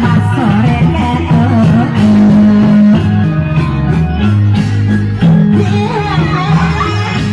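Loud music with a plucked guitar and singing over held bass notes.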